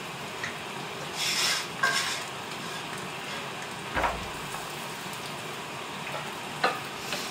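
Egg frying in butter in a cast-iron pan, a steady sizzle, with a few short scrapes and knocks of utensils on dishes.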